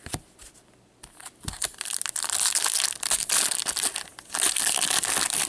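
A couple of light taps, then from about two seconds in a steady crinkling and crumpling of a trading-card pack wrapper handled in gloved hands.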